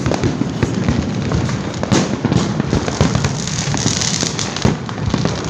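Fireworks going off continuously: a dense, irregular crackle of many small bangs over a steady rumble of distant bursts.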